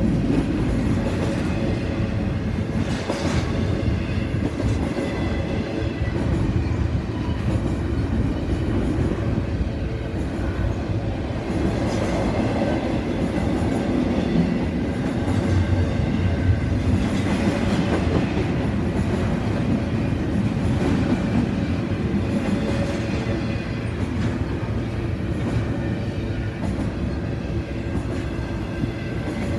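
Double-stack intermodal container cars of a freight train rolling past at steady speed: a continuous rumble of steel wheels on rail, with an occasional clack as trucks cross rail joints.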